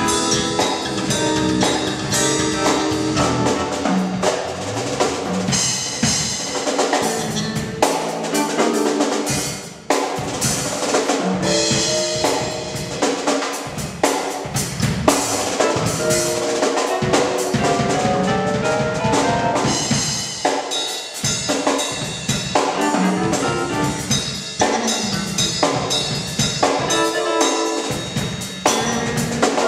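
Live gospel band: a drum kit plays a busy groove with snare, rimshots and bass drum, over pitched accompaniment from bass and keyboard. The band drops out briefly about nine and a half seconds in, then comes straight back in.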